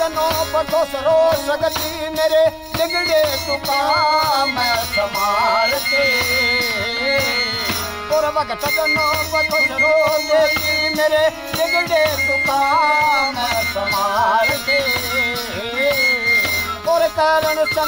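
Bansuri bamboo flute playing an ornamented devotional folk melody over a steady held drone, with tambourine jingles rattling along in rhythm.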